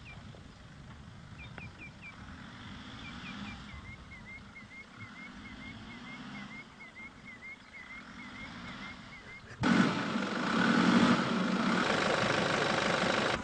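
Faint, quick bird chirps repeating about three times a second over a quiet background. About ten seconds in, a Nissan Patrol's engine comes in suddenly and loud, and runs on steadily.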